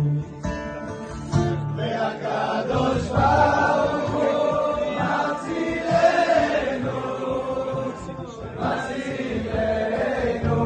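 Voices singing together in Hebrew, with music.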